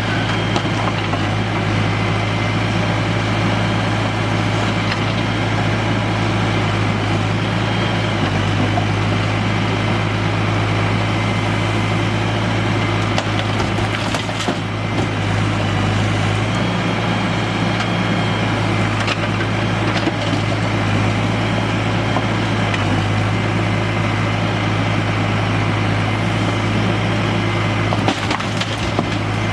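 Heavy diesel engine running steadily, with stones rattling and scraping as they are loaded.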